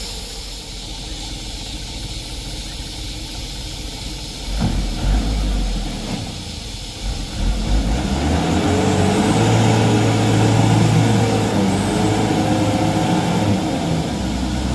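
Mitsubishi Fuso light dump truck's diesel engine running while the truck is stuck in deep mud. About halfway through it revs up and holds a higher pitch for several seconds under load as the driver tries to pull the truck free.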